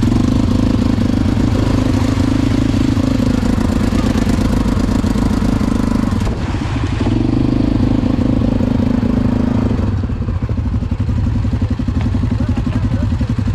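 ATV engine running under throttle while riding, easing off briefly about six seconds in and again about ten seconds in.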